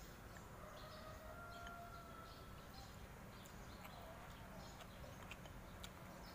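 Near silence: a low room hum, a faint thin whistle-like tone in the first couple of seconds, and a few faint clicks of wooden chopsticks against a ceramic noodle bowl in the second half.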